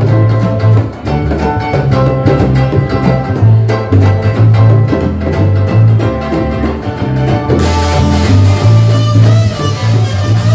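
Live band playing, with guitar and a bass line of strong low notes; the sound gets brighter and fuller about eight seconds in.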